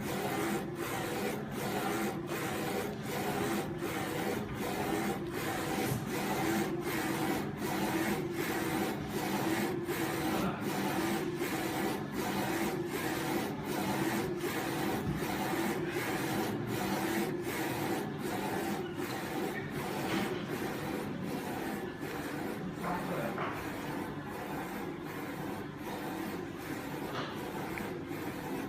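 UV flatbed printer running while printing on glass: a steady mechanical whir with the print-head carriage sweeping back and forth, its sound dipping briefly at each pass about one and a half times a second.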